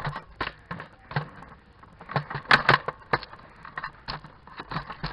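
Nerf blasters being primed and fired in quick succession: an irregular run of sharp plastic clacks and snaps, about three a second, loudest in a cluster around the middle.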